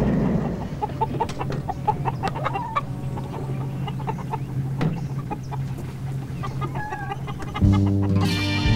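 Chickens clucking in short, scattered calls over a low steady hum. Near the end, jazzy music with brass comes in louder.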